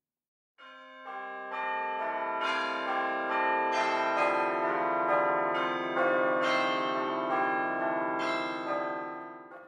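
Church bells ringing a peal, a new bell struck about twice a second with the tones ringing on and overlapping; it starts about half a second in and dies away near the end.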